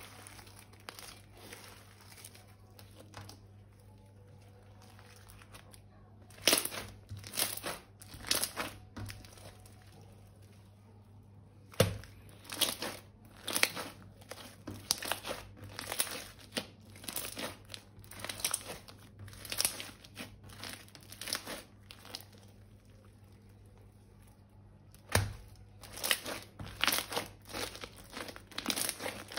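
Crinkling and crackling of plastic piping bags and slime being handled. It comes in bursts of short strokes after a quieter first few seconds, with two sharper knocks, about twelve seconds in and near twenty-five seconds.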